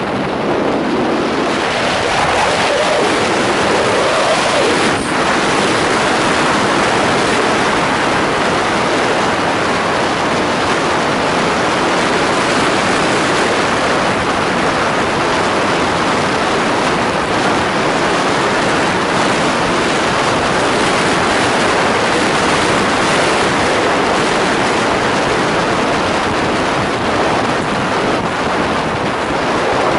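Steady rush of wind over the microphone of a camera on a moving motorcycle, mostly covering the engine, which comes through faintly in the first few seconds.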